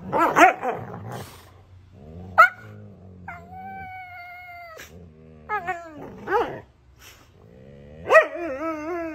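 Huskies 'talking' at each other in a spat: low growling, sharp yips, and long whining, howl-like calls that waver in pitch, one held for over a second near the middle.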